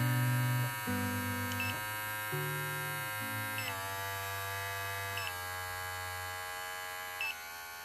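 Brio Beardscape cordless beard trimmer's motor running with a steady electric hum, its pitch stepping down three times as the speed button lowers it from its 7000 rpm maximum toward 5500 rpm. Each press gives a short beep.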